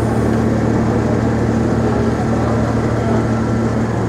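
Ferry's diesel engines running steadily: a constant low hum over a broad rumble.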